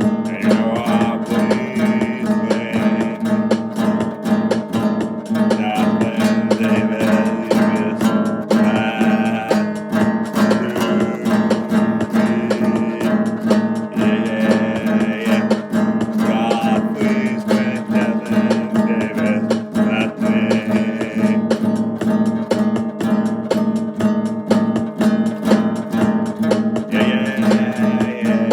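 Music led by a strummed acoustic guitar with a steady beat, in an instrumental stretch between sung lines.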